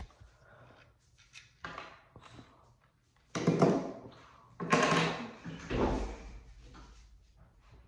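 A phone camera being handled and set back on its stand: knocks and rustling close to the microphone, then three short loud noises about a second apart.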